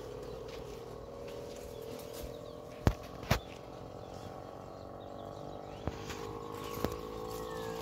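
Electric forage chopper running with its hum slowly rising in pitch, two sharp knocks about three seconds in.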